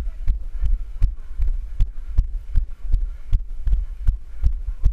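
Running footsteps of the camera wearer, a dull thump about every third of a second that jolts the carried camera, over a steady low wind rumble on the microphone.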